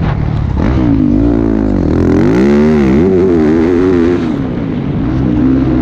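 Motocross bike engine heard from the rider's helmet, racing hard with the revs rising and falling repeatedly under the throttle, easing off briefly a little after four seconds before climbing again.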